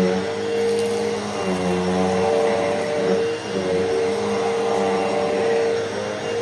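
Hoover Elite Rewind upright vacuum cleaner running steadily, its motor pitch shifting slightly every second or so.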